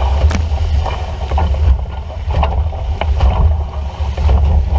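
Heavy wind buffeting the microphone on a fast-moving small sailboat, with water rushing and splashing against the hull. Several sharp splashes stand out over the rumble.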